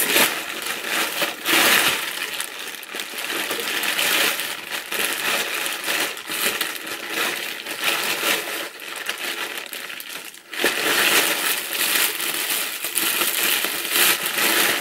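Thin plastic carrier bag rustling and crinkling as boots are pushed into it and the bag is gathered and flattened by hand, with a brief lull about ten seconds in.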